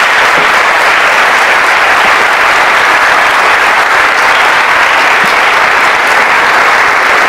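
A large lecture-hall audience applauding steadily and loudly, a dense wash of many hands clapping.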